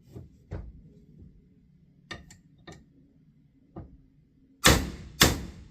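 A few light clicks of handling, then two sharp hammer blows about half a second apart near the end: the rebuilt Yamaha TTR125 crankshaft, resting on a wooden block, is being tapped to true its pressed-together flywheels and take out runout.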